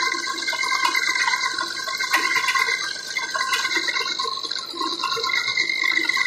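Gear-cutting machine at work on a worm gear with cutting fluid flowing: a steady splashing hiss over a few constant high machine tones.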